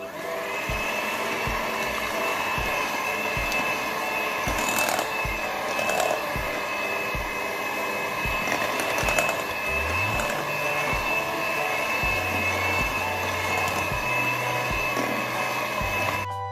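Electric hand mixer running at medium speed, its beaters working flour into a whipped egg-and-sugar cake batter in a glass bowl: a steady motor whine that starts just after the opening and stops near the end.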